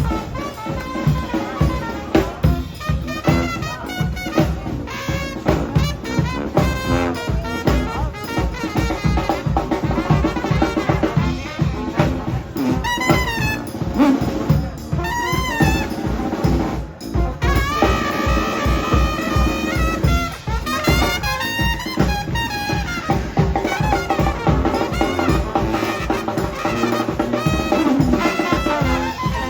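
Brass band playing live: horn melody lines, some bending and sliding in pitch, over a steady driving drum beat.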